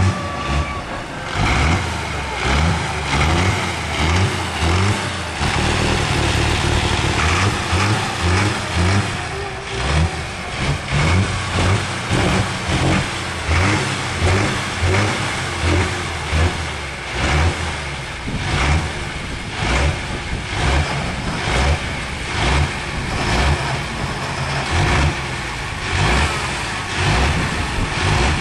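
Diesel super stock pulling tractor's engine running loud, its level rising and falling about once a second.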